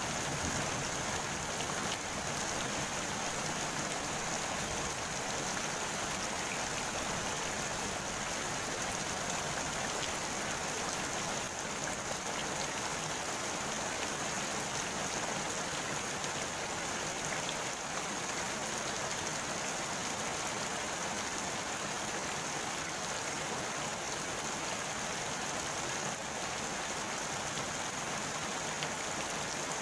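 Steady rain falling on a pond's surface: an even hiss of many drops, with no letup.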